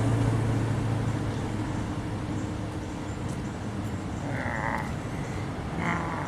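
Street traffic passing: a vehicle's steady engine hum fades out about a second and a half in, leaving road noise, and two short buzzy, warbling sounds come near the end.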